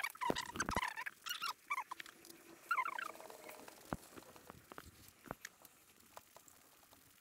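A few short, high chirping calls from an animal in the first three seconds, mixed with scattered light clicks and taps of hand tools and screws as the motorcycle's engine cover is refitted.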